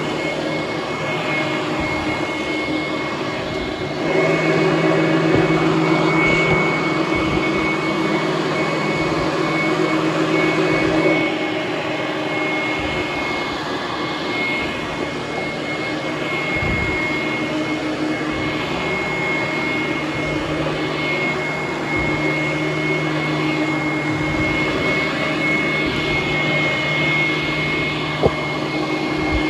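Hoover Conquest upright vacuum cleaner running on carpet, a steady motor noise with a high whine. It grows louder for several seconds about four seconds in, and there is a single click near the end.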